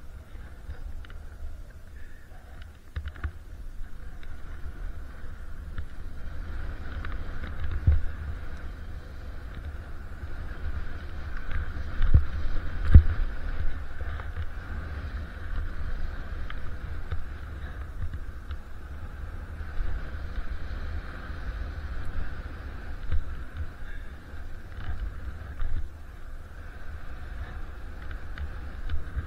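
Skis hissing steadily through snow on a downhill run, with wind rumbling on the microphone and a few thumps from bumps, the loudest about 13 seconds in.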